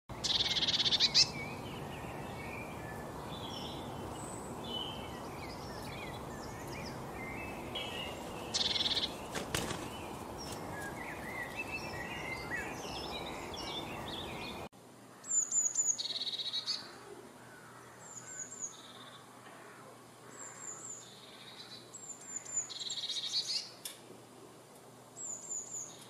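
Eurasian blue tits and other small songbirds chirping over a steady hiss. About halfway the hiss drops away, and high thin calls come in quick runs of three or four notes every few seconds, with a few louder bursts of chatter.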